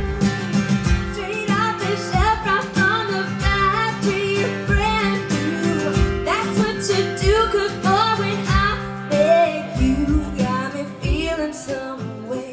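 A live country-pop band playing: acoustic guitars with a steady beat, and women's voices singing a melody over them.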